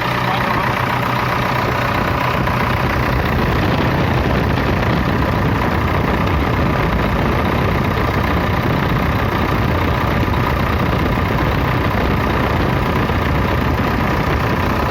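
Kirloskar 4R1040 four-cylinder diesel engine of a JCB backhoe loader idling steadily. The owner judges the engine badly worn, with blow-by past the liners and compression rings pushing smoke out of the dipstick hole.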